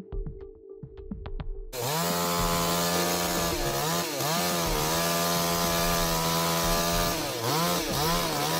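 Background music, then about two seconds in a chainsaw cuts in, running at full throttle while cutting wood, its pitch dipping and recovering twice.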